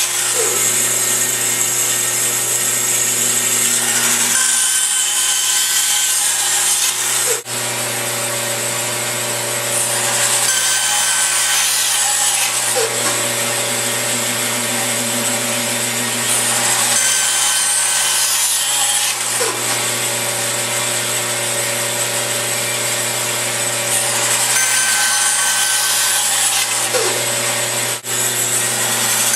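Band saw running with a steady motor hum, its blade cutting through small wood pieces pushed on a crosscut sled. The rasping cut swells and eases in repeated passes.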